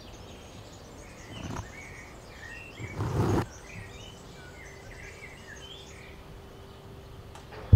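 Outdoor ambience with birds chirping in short, scattered calls over a low background noise, and a brief rush of noise about three seconds in.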